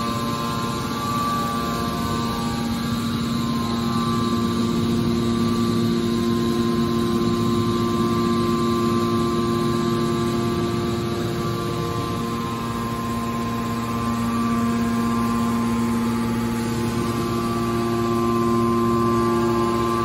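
Hydraulic power unit of a scrap metal baler running: the electric motor and hydraulic pump give a steady hum with several held pitches.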